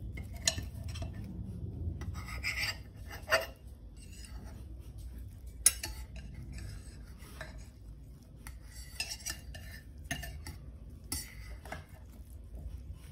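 Knife and fork cutting a slice from a baked frittata in a quiche dish: metal cutlery scraping and clicking against the dish, with a few sharp clinks, the loudest about six seconds in.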